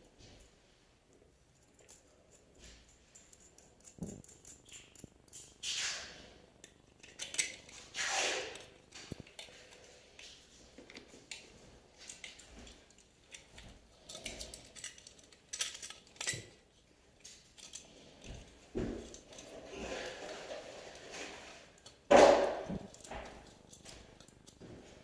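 Irregular handling noises: small clicks, knocks and scrapes of hard objects being moved about, with several short louder rustling swells, the loudest near the end.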